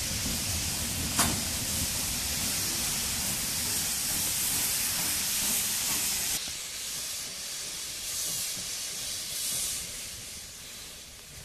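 USATC S160 steam locomotive hissing loudly as steam escapes, with one sharp click about a second in. About six seconds in the hiss drops suddenly to a quieter, more distant hiss.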